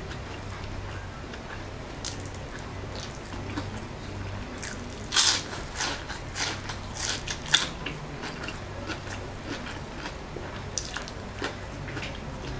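A person biting and chewing fried lumpiang shanghai (spring rolls) close to the microphone: a string of short, crisp crunches, thickest and loudest about halfway through.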